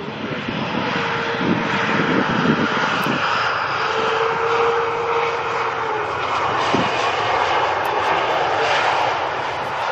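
Jet airliner's engines passing low overhead on landing approach: a loud, steady jet noise with a held whine through the middle.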